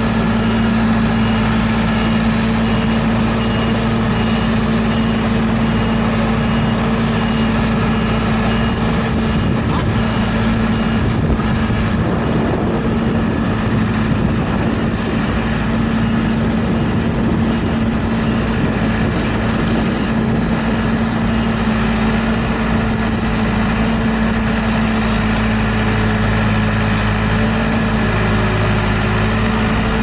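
Diesel engine of a TS80 tracked skid steer loader running steadily while the machine drives and pushes dirt with its bucket.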